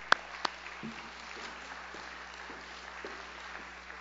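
Audience applauding steadily, with two sharp knocks in the first half second, loudest of all, such as a microphone or lectern being bumped.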